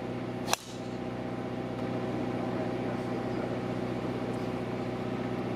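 Driver striking a golf ball off the tee: one sharp crack about half a second in, over a steady low mechanical hum.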